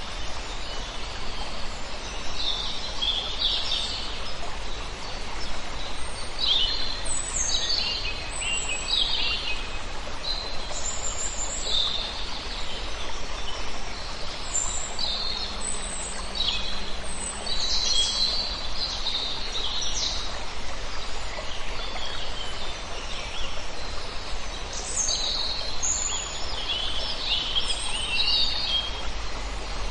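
Several songbirds chirping and trilling in short, overlapping phrases, over a steady rush of flowing stream water.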